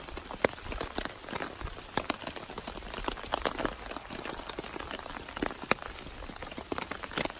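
Rain falling on tent fabric: irregular drops tapping over a steady hiss.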